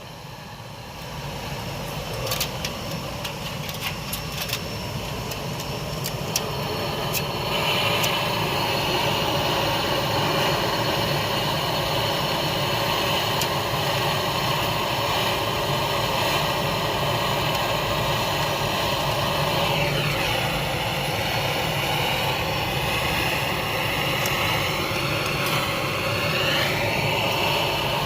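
Brazing torch flame burning with a steady roaring hiss, building up over the first several seconds after a few sharp clicks, with two brief shifts in pitch in the second half.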